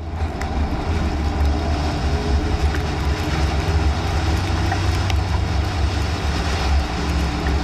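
Steady low rumble of road and wind noise inside a moving vehicle, with a few faint clicks.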